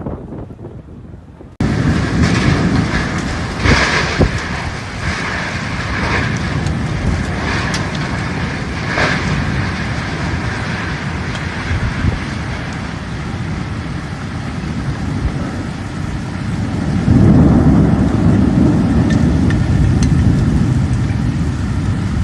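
Heavy downpour: a steady loud rush of rain, with scattered sharper splashes or gusts. It starts abruptly after a quieter second and a half, and a deeper rumble swells about seventeen seconds in.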